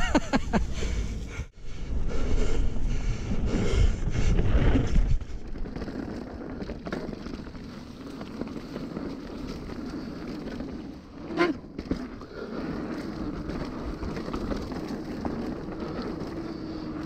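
Mountain bike rolling down a dirt singletrack: tyre noise on packed dirt and leaves, with wind buffeting the helmet-camera microphone, heaviest in the first few seconds. A brief sharp sound comes about eleven seconds in.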